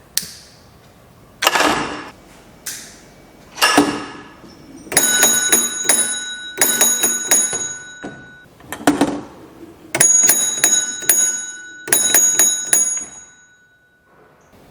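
A small alarm bell rung mechanically in three bursts of rapid strikes, set off by cutting the fishing line of an unpowered fishing-line fire detector: the bell signals a fire on that line. Several sharp knocks come before the ringing, and a thud falls between the first two bursts.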